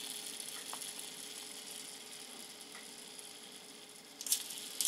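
Faint handling of a small plastic toy motorbike over a steady low hum: a few light ticks, then two short rustling scrapes near the end.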